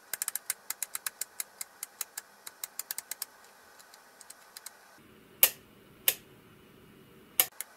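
Rotary switch knob on a bench test box being turned through its detents: a quick run of light clicks, about five a second, for the first three seconds, then three louder single clicks spaced apart near the end, stepping the test signal fed to the oil pressure and temperature indicator.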